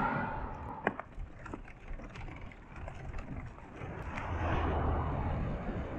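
Road traffic: a vehicle passes, swelling and fading about four to five seconds in. A few sharp clicks sound through the first four seconds.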